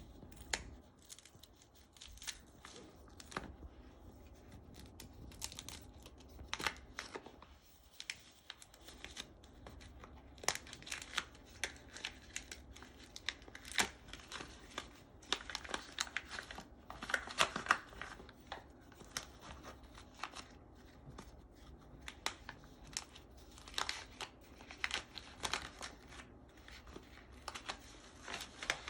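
Paper packaging being handled and unwrapped by hand: irregular crinkling and tearing with scattered small clicks and taps.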